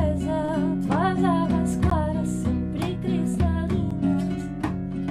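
A woman sings a slow devotional song over a strummed acoustic guitar, with a frame drum played by hand alongside. The sound comes over a video call.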